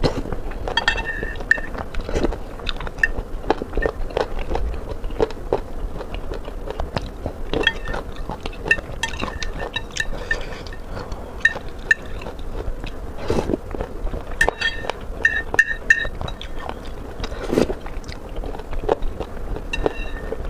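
Close-miked chewing and biting: a steady run of wet mouth clicks, smacks and crunches as food is eaten.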